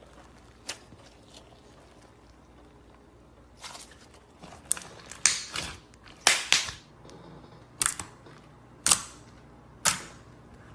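Slime being squeezed and pressed, giving a series of sharp pops and snaps, about nine spread irregularly with a few close together in the middle, as trapped air bursts.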